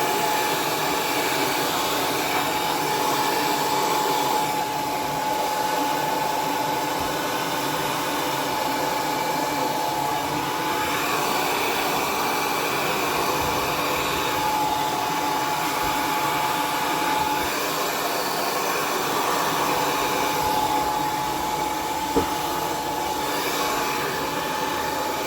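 L'ANGE hair dryer running steadily: a constant rush of air with a steady high motor whine, blowing on hair to dry it. One short click near the end.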